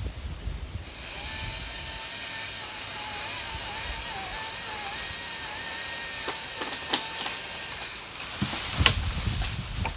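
Chainsaw running at high revs, its pitch wavering slightly as it cuts, starting about a second in and stopping about eight seconds in. Near the end wind buffets the microphone with a deep rumble, and there is a sharp crack shortly before it.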